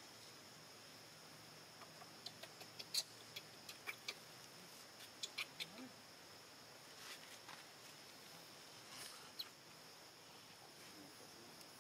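Faint, steady high-pitched insect drone, with a scatter of small sharp clicks in the first half and one more later on.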